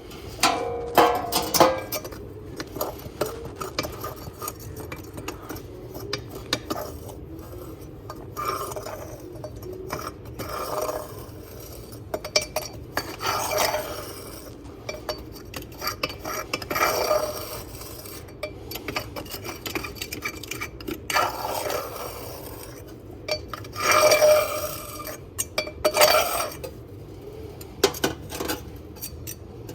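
Metal scraping and clinking at irregular intervals while wood ash is cleared out of a homemade fireplace, with several louder scrapes along the way.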